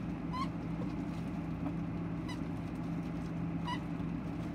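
Plush squeaky dog toy squeaking three short times as it is squeezed and twisted in the hands, over a steady low hum.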